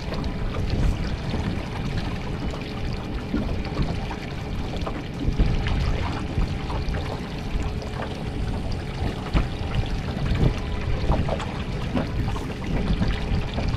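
Wind buffeting the microphone and water slapping and trickling against a small boat's hull, with scattered short knocks and clicks.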